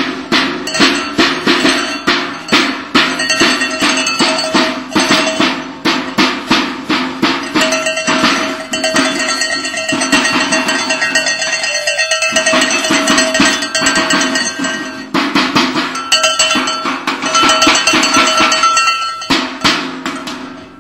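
Rhythmic clanking percussion with a ringing, cowbell-like metallic tone, struck about two or three times a second, made as deliberate noise to get a horse used to sounds.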